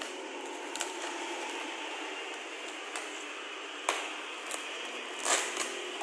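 Bubble wrap and plastic bag crinkling and crackling as they are cut and pulled open, with a few sharp crackles, loudest about five seconds in.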